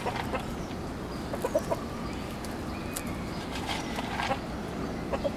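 Backyard chickens clucking, a few short clucks scattered over steady outdoor background noise.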